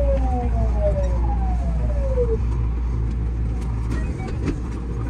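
JR West 207 series 1000 electric train heard from the driver's cab as it pulls away from a station. Several whine tones from the motor drive fall in pitch over the first two seconds above a steady low rumble, then a few sharp clicks from the wheels come about four seconds in.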